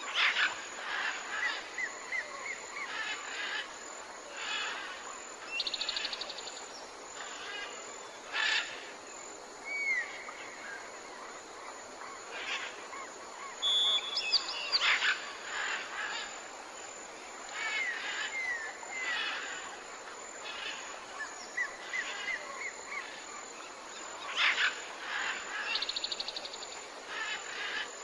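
Wild birds calling and singing: many short chirps and slurred whistles, with a fast rattling trill twice, over a steady background hiss.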